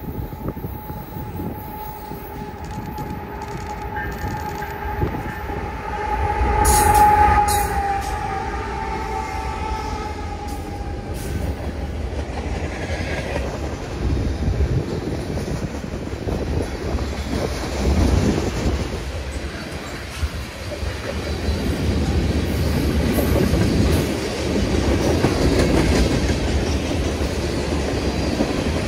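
Freight train passing. A steady high tone sounds over the engine rumble, loudest about seven seconds in, then falls slightly and fades within the first ten seconds. The wagons then roll by with wheels clicking over the rail joints, a rolling roar that builds towards the end.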